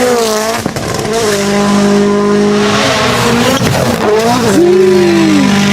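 Rally car engine at high revs, a steady raw exhaust note that dips and climbs again about four seconds in, then falls away near the end.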